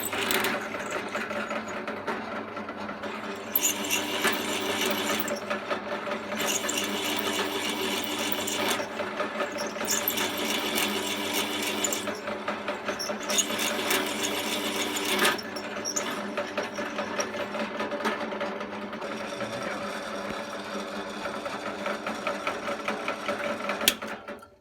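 Old Warmac bench drill press running and drilling into a cast motor-mount bracket: a steady motor hum, with the cutting noise rising and easing every few seconds as the bit is fed in and backed off. It cuts off suddenly near the end.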